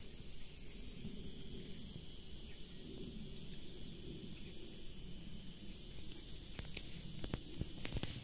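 Steady high-pitched insect chorus over a low rumble, with a few sharp clicks near the end.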